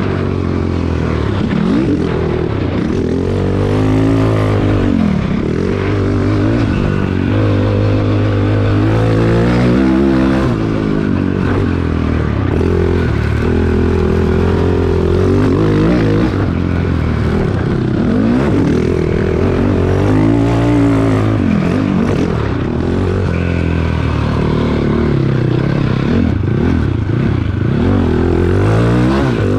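Cannondale quad's single-cylinder four-stroke engine under way, revving up and easing off again and again as the throttle is worked.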